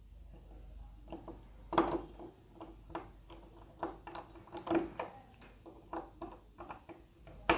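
Small precision screwdriver turning a tiny screw into a plastic model-car chassis, with irregular light clicks and ticks as the tip and hands knock against the parts.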